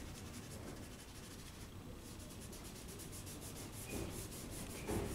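Faint, quick, repeated rubbing strokes of charcoal on toned drawing paper as the hand works the charcoal in to keep the core shadows soft.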